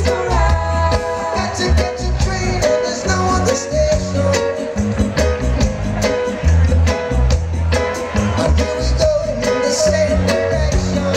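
Live reggae band playing with a steady drum beat and heavy bass while a male lead singer sings into a microphone.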